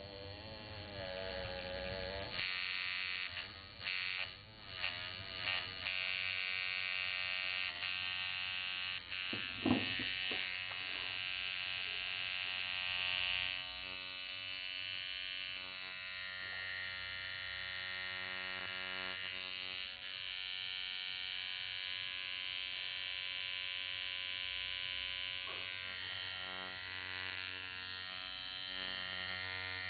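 Workhouse Bronze Gun II coil tattoo machine running off a DC power supply at about 10.5 volts: a steady electric buzz. The buzz breaks off and restarts several times in the first six seconds, and there is a single short knock about ten seconds in.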